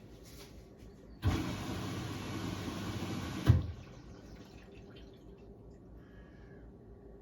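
Hoover H-Wash 600 washing machine taking in water: about a second in, the inlet valve opens with a knock, water rushes into the drum for a couple of seconds, and it stops sharply with a clunk.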